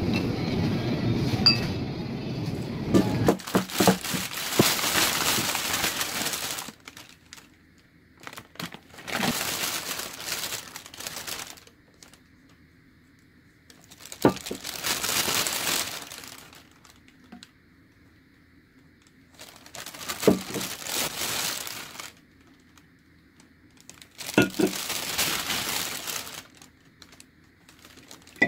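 After a low background rumble in the first few seconds, a plastic shopping bag crinkles and rustles in about five separate bursts as groceries are lifted out of it, with a few light knocks as items are set down.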